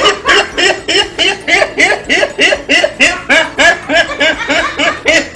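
A man laughing hard and without a break, a steady run of about four high-pitched "ha"s a second, each rising and falling in pitch.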